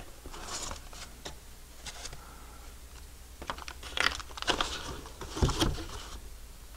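A cardboard box being opened and unpacked by hand: the flaps and packing rustle and crinkle in irregular bursts, with light knocks and a dull thump about five and a half seconds in.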